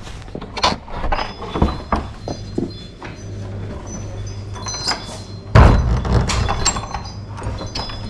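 A shop door being opened and handled, with clicks and knocks of the latch, a small door chime ringing high tones for a few seconds, and a loud thump with a rumble about five and a half seconds in.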